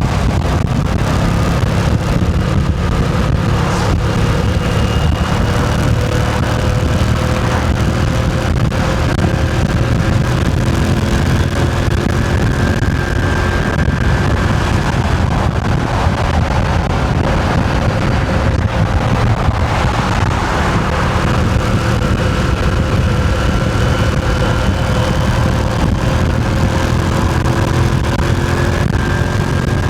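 Moto Guzzi V7's air-cooled transverse V-twin running on the move at a fairly steady speed, its pitch drifting gently up and down, with wind noise on the microphone.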